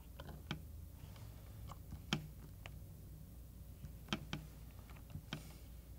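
Key presses on the small keypad of a Franklin handheld electronic spelling dictionary: several faint, irregularly spaced clicks, the clearest about two seconds in and a quick pair around four seconds in.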